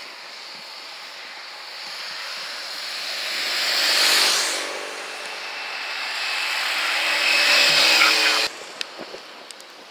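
Race escort motorcycles passing close: the first swells to a peak about four seconds in and fades, then a second engine grows louder with a steady pitch until the sound cuts off abruptly about eight and a half seconds in.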